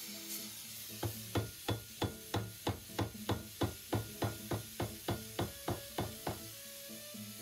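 Hammer striking a steel piece clamped in a bench vise: a quick, even run of about eighteen blows, about three a second, starting about a second in and stopping about six seconds in, over background music.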